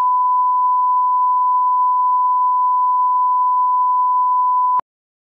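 Line-up test tone that goes with a colour-bar test pattern: one steady, pure, loud beep that cuts off abruptly near the end.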